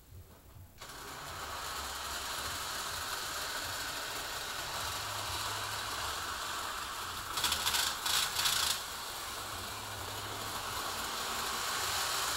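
HO scale model freight train running on its track: a steady rattling hiss of the locomotive's motor and gears and the wheels on the rails, starting about a second in. A short, louder clattering comes a little past the middle.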